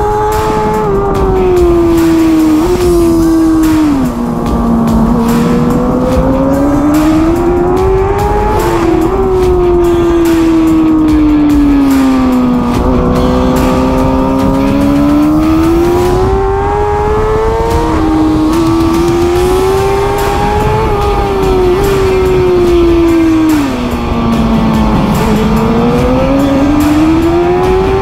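Racing superbike engine heard on-board at speed, its note climbing and falling over and over as the bike accelerates and slows through the corners, with wind rushing over the microphone.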